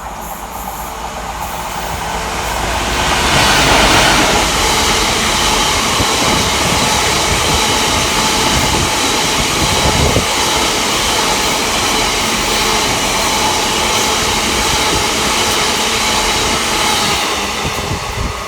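A train passing along the track at speed: the rushing noise of wheels on rails builds over a couple of seconds, stays loud and steady with some clickety-clack for about a dozen seconds, then falls away near the end.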